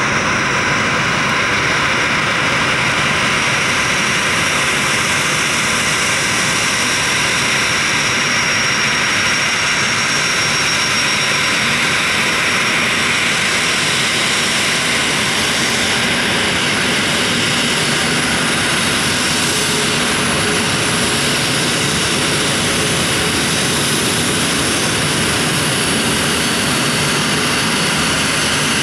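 Boeing 737-300's CFM56 turbofan jet engines running, a loud, even rushing noise with a faint high whine that holds steady throughout.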